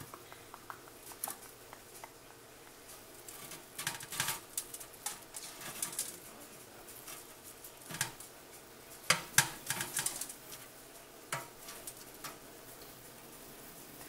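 Metal fork clicking and scraping against the wire-mesh tray of a Farberware air fryer oven as chicken drumsticks are prodded and turned over. The clicks come irregularly, with the loudest clatters past the middle.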